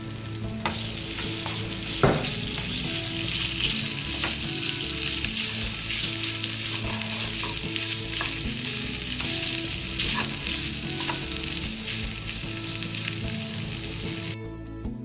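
Marinated chicken pieces frying in oil in a pan to dry off their juices: a steady loud sizzle that starts about a second in, stirred, with a few sharp knocks, the loudest about two seconds in. The sizzle cuts off just before the end, leaving only background music.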